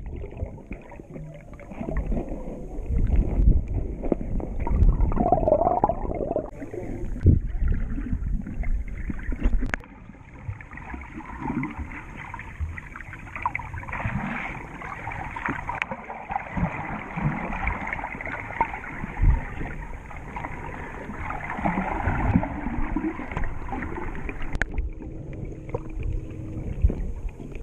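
Water sloshing and gurgling around a camera held underwater by a swimmer, heard muffled, with many irregular low thumps and a few sharp clicks.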